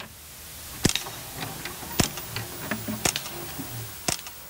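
Channel intro sound effect: a swelling hiss of static with four sharp clicks about a second apart.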